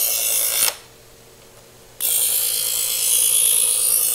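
Chef's Choice 15XV electric knife sharpener grinding a steel knife blade drawn through its first-stage sharpening slot: a loud, high grind that cuts off under a second in as the blade leaves the slot, leaving only the motor's faint hum, then starts again about two seconds in with the pull on the other side of the blade. These are stage-one pulls meant to raise a burr on a dull edge.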